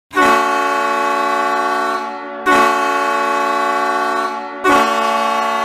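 Ice hockey goal horn sounding three long, steady blasts of about two seconds each, the third held on.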